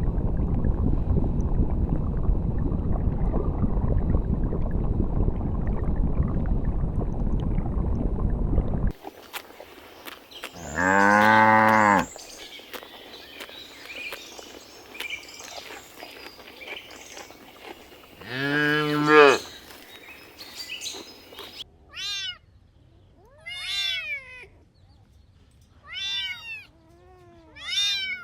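A steady low rumbling noise for about nine seconds that cuts off suddenly, then two long, low moos from a cow, then a series of about five short cat meows near the end.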